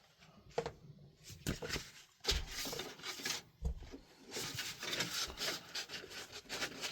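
Hand rubbing and handling of a pad at a sharpening machine: irregular rubbing strokes with scattered light clicks and knocks.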